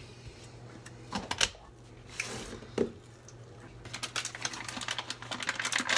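A spatula scraping and tapping whipped cream cheese out of a metal measuring cup into a glass bowl: a few separate clicks, then from about four seconds in a quick run of small taps and clicks.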